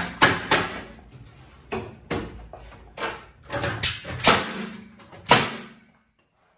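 Pneumatic framing nailer firing nails into 2x4 wood framing: about ten sharp, irregularly spaced shots with a short echo, stopping suddenly about six seconds in.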